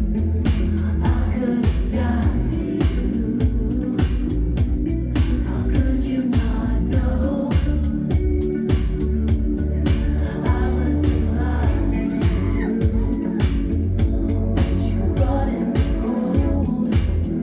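Live indie synth-pop band playing, a steady drum beat under synths and bass, with a singing voice.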